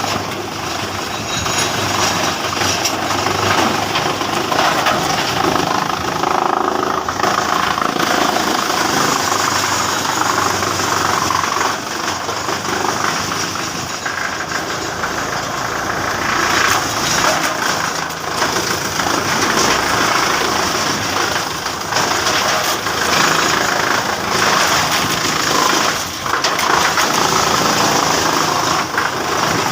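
Heavy-duty wood chipper machine running: a loud, dense mechanical noise whose level rises and falls irregularly.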